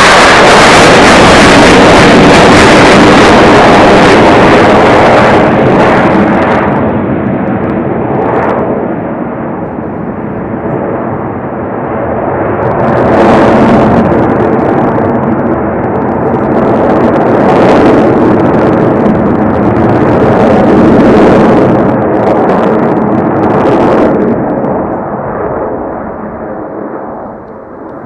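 Blue Angels F/A-18 Super Hornet jets flying past, their engine noise very loud at first, then easing off and swelling again several times as passes go by, before fading away near the end.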